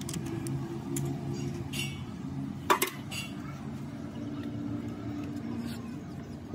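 Metal tools and engine parts clinking against one another over a steady low machine hum, with one sharp metallic clink a little under three seconds in.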